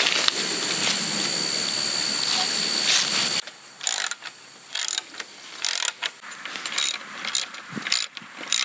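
A steady loud hiss with a thin high whine for the first few seconds, then a ratchet wrench clicking in short irregular runs as bolts are tightened on the chain-link kennel's rail clamps.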